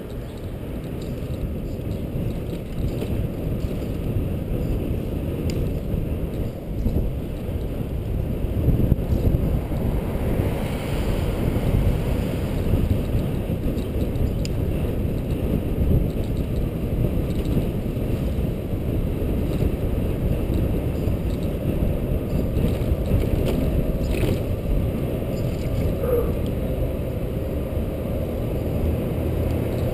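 Wind buffeting the microphone of a helmet camera on a moving bicycle: a steady low rumble.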